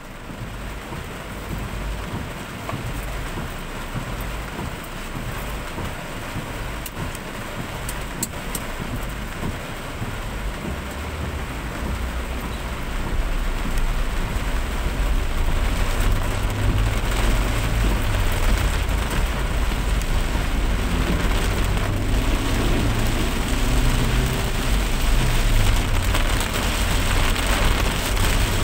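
Steady rain-like noise with a deep low rumble beneath it. The whole sound grows louder about twelve seconds in.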